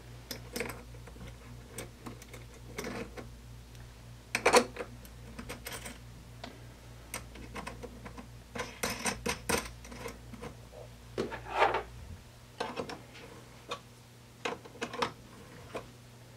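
Small metal clicks and clinks at irregular intervals as a cable's ring terminal, washer and nut are fitted onto a battery fuse block's stud and turned down. The loudest click comes about four and a half seconds in and a cluster follows around nine to ten seconds. Under them a steady low hum cuts out about twelve seconds in.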